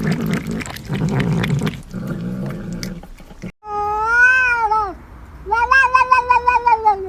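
A domestic cat meowing twice in long, drawn-out calls that rise and fall; the second call wavers rapidly, like a yowl. Before the calls there is a low, pulsing rumble.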